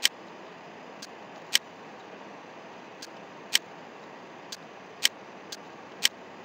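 Computer mouse clicking, a sharp click every second or so, some louder and some fainter, over a steady low hiss.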